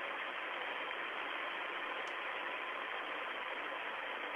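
Steady rushing hiss of the radio link carrying the Soyuz crew cabin's audio during ascent, static and cabin noise with a faint steady tone underneath.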